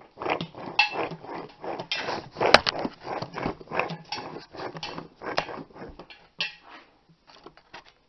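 Worn front wheel hub bearing from a 2002 Ford Ranger 4x4, spun by hand, grinding with rough, irregular clicking: the damaged bearing behind the truck's front-end howl. One sharp click stands out about two and a half seconds in, and the grinding dies away after about six seconds as the hub slows.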